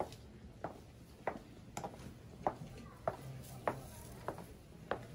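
Footsteps on stone paving at an even walking pace, about three steps every two seconds.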